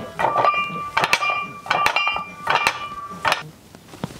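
Iron weight plates clinking and rattling on a barbell's sleeves during bench press reps. Sharp metal clinks come about once every second or less, each leaving a short ring.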